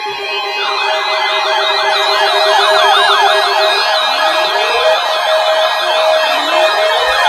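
Electronic siren tones. A steady tone is joined, under a second in, by a fast warbling yelp. From about four seconds in a slower rising wail repeats every couple of seconds.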